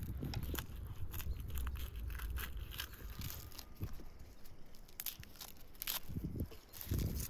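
Dry, papery garlic skins crackling and rustling as garlic cloves are peeled by hand, in a quick, uneven series of small crackles.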